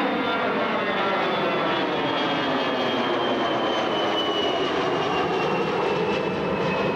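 Twin-engine jet airliner passing low overhead: a loud, steady engine noise with whining tones that slowly fall in pitch as it goes by.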